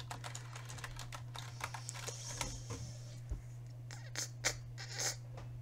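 Computer keyboard being typed on: a quick run of key clicks for the first couple of seconds, then a few scattered, louder clicks near the end, over a steady low hum.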